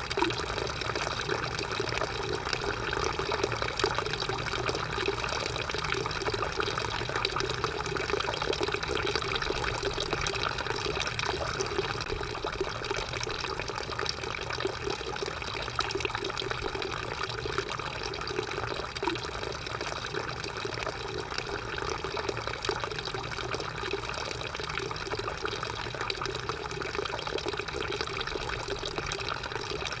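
Drinking fountain running: a steady stream of water splashing and trickling into the basin without pause.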